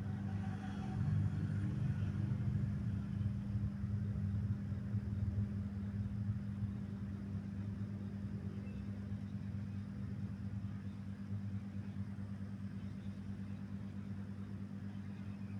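Motorcycle engine running steadily at low revs with a deep, rapidly pulsing exhaust note. It is a little louder in the first few seconds, then settles slightly quieter.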